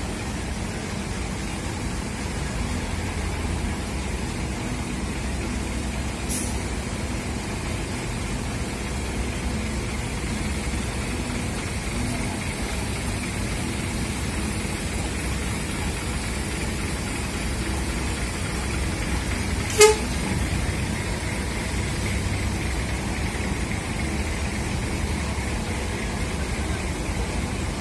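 Diesel coach engine running low and steady as the bus creeps forward and passes close by. One short horn toot sounds about twenty seconds in.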